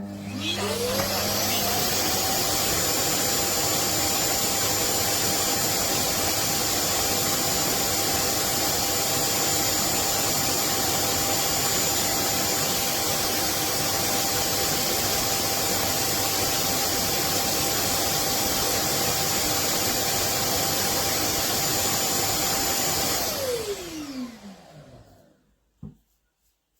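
Vacuum suction motor of the MONSGA robot vacuum set spinning up with a rising whine. It then runs steadily with a loud rushing hiss and a high whine for about twenty seconds, before winding down with a falling whine near the end.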